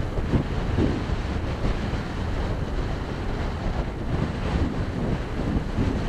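Gale-force wind buffeting the microphone: a loud, low rumble that swells and drops in gusts.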